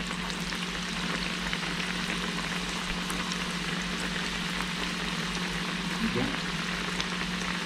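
Cauliflower pakoda batter deep-frying in a kadai of hot oil: a steady sizzle with fine crackles, over a steady low hum.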